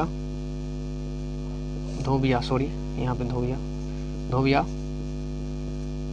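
Steady electrical mains hum, a low buzz with several higher tones stacked above it. A man's voice briefly murmurs a few syllables about two, three and four and a half seconds in.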